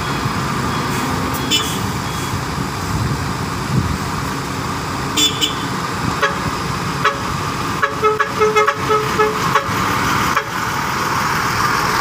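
Diesel engines of a Volvo EW145B wheeled excavator and a tipper dump truck running steadily while the excavator's bucket scrapes sticky mud out of the raised dump bed, with a few sharp metal clanks. A quick string of short beeps sounds about eight seconds in.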